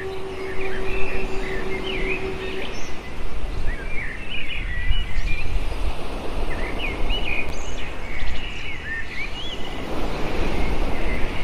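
Birds chirping and twittering over a steady low outdoor rush of noise. A faint steady hum stops about three seconds in.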